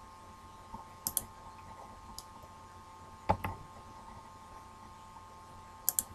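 A few sharp computer mouse clicks: a quick double click about a second in, a single click, a duller knock in the middle, and another double click near the end. Under them runs a faint steady hum.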